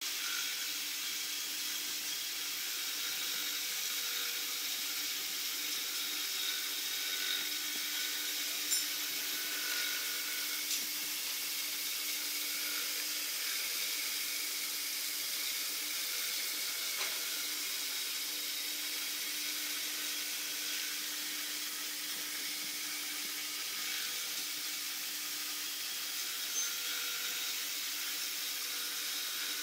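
CNC milling machine cutting a mould cavity face: a steady hiss with a few faint steady tones underneath and a few light ticks.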